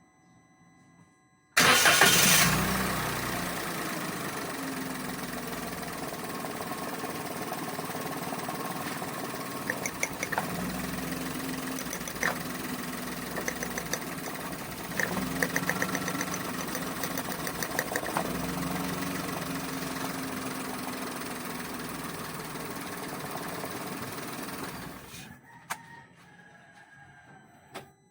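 Toyota Wigo's three-cylinder petrol engine cranked and starting about one and a half seconds in, loudest at the catch, then settling into a steady idle. The pitch shifts slightly a few times while it runs. It is switched off a few seconds before the end.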